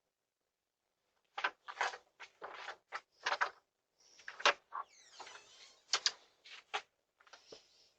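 An irregular series of short clicks, knocks and clatters starting about a second and a half in, thin and tinny as heard through a doorbell camera's microphone.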